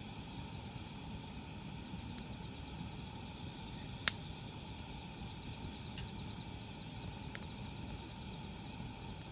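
Campfire crackling, with scattered sharp pops, the loudest about four seconds in, over a faint steady chirring of insects.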